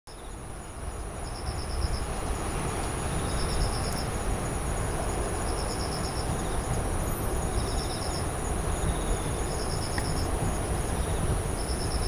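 Insects singing at night: a steady high trill, with a short rapid-pulsed chirp repeating about every two seconds, over a low steady rumble.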